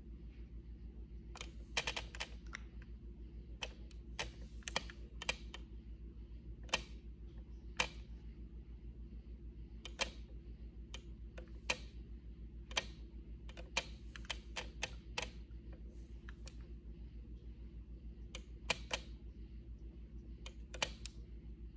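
Irregular light clicks and taps from a nail polish bottle and brush being handled as toenails are painted, over a steady low electrical hum.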